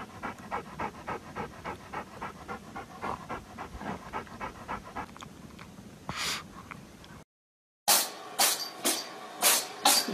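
Small dog panting in quick, even breaths, about four to five a second. The sound cuts out briefly near the end and gives way to a run of sharp taps about half a second apart.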